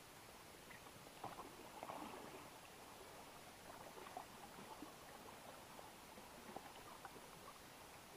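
Faint water lapping and small splashes against the side of a kayak, a soft patter of drips and ripples.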